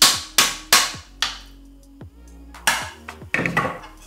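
A run of sharp strikes, each ringing briefly and fading, about three a second at first, then a pause and a few sparser strikes near the end.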